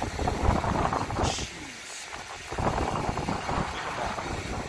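Wind buffeting the microphone: a rough, gusty low rumble that drops away briefly about two seconds in, then returns.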